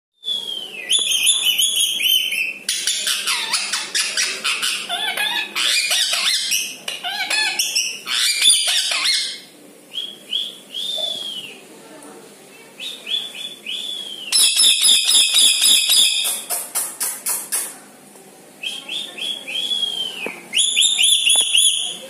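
Rose-ringed parakeet calling: short arched whistled calls that dip in pitch, broken by loud bursts of fast, harsh chattering near the start, around the middle and again near the end.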